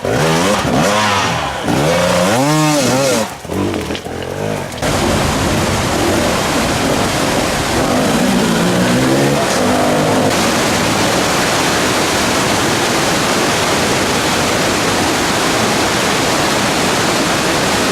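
Enduro motorcycle engine revving up and down several times, its pitch rising and falling in quick sweeps. About five seconds in this gives way to a steady loud rushing noise, with the engine faintly beneath it for a while.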